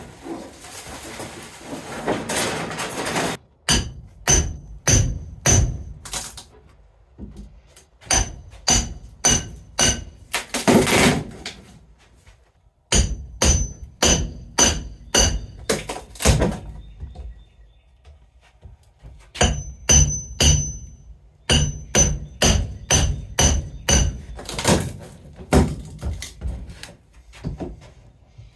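Hammer blows on metal and wood, ringing with each hit, in runs of four to six strikes about half a second apart with pauses between. There are a few longer scraping stretches, typical of the crate around a mini milling machine being knocked and pried apart.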